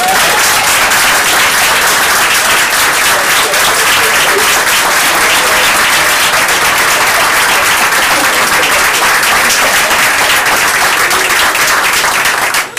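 Audience applauding, a loud, dense clapping that starts suddenly and dies away near the end.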